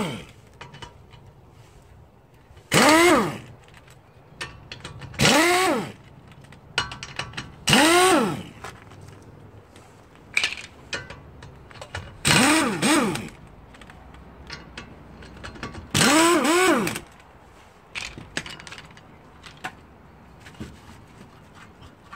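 Handheld power wrench loosening a van's rear wheel bolts in five short bursts a few seconds apart, each whirring up and winding back down in pitch, with small clicks between them as the wheel comes off.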